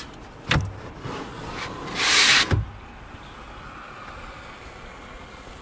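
Boot cargo cover being handled: a sharp knock, then a short, loud swish ending in a thump.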